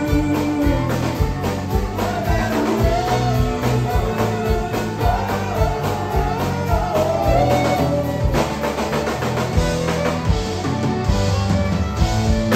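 Live country band: a male lead vocal over strummed acoustic guitar, fiddle and a drum kit keeping a steady beat.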